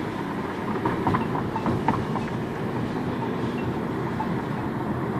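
Steady road and tyre noise inside a moving car, with a few light clicks between one and two seconds in.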